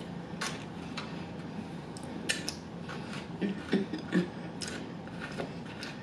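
Eating at close range: scattered light clicks and taps of utensils and food containers, with chewing, while barbecue is eaten.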